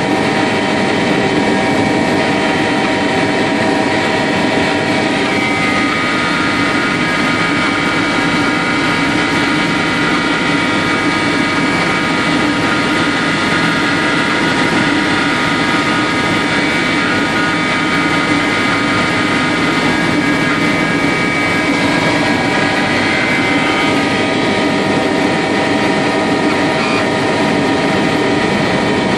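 Helicopter cabin noise in flight: a steady, loud drone of engine and rotor with several steady whining tones on top. The set of whining tones changes about five seconds in and again a few seconds before the end.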